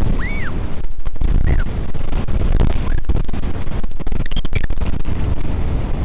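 Northern royal albatross giving one short high whistling call that rises and falls just after the start, with fainter brief calls later. Loud low wind rumble buffets the microphone throughout.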